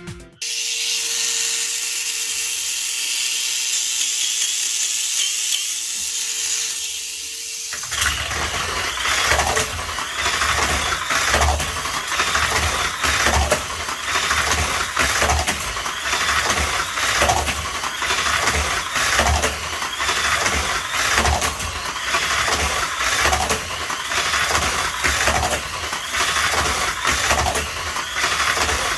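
Mini 4WD car's small electric motor and gears running at speed with a steady high whine. About eight seconds in the sound changes to a regular pulsing, roughly one and a half beats a second, with low thumps.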